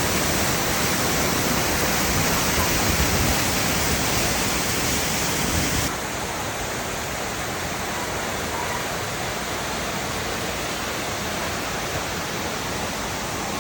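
Steady rush of a waterfall's falling water. It drops abruptly to a somewhat lower level about six seconds in.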